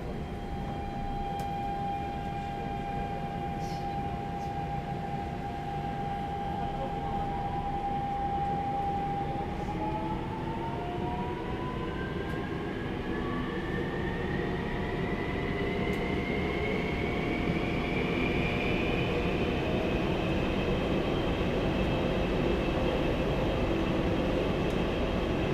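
Daegu Metro Line 1 train heard from inside the car: a steady electric motor whine over wheel and track rumble, which about ten seconds in begins a long, smooth rise in pitch as the train picks up speed. The whine comes from the traction inverter and motors, whose control software has been updated on this train.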